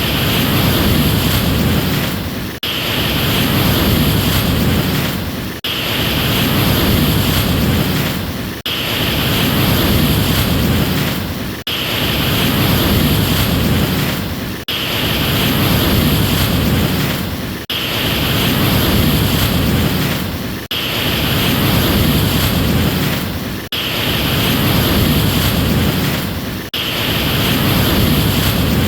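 Ocean surf: a steady rush of waves, with a brief dip in level about every three seconds that repeats exactly, as from a short looped recording.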